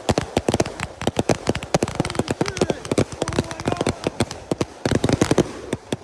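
Consumer firework cake (Raccoon Fireworks 'Armed Forces' compound cake) firing: a rapid, dense string of sharp cracks and pops, several a second, that thins out and stops near the end.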